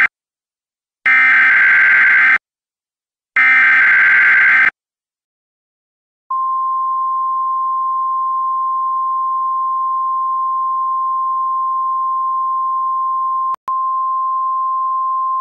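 Emergency Alert System SAME header: the tail of one harsh data burst, then two more identical short buzzy bursts about a second apart. After a short pause comes the long, steady single-tone attention signal, broken briefly by a click about 13 seconds in. Together they signal that an alert message, here a severe thunderstorm warning, is about to be read.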